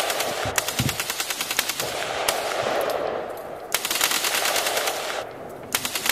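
Long bursts of rapid automatic gunfire, about ten shots a second, with a brief break about five seconds in.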